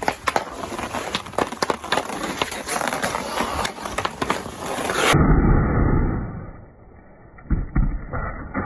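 Hockey skate blades carving and scraping across fresh outdoor ice in a quick series of sharp scrapes. About five seconds in the sound suddenly turns dull and muffled with a loud low rush, then sharp blade scrapes return near the end.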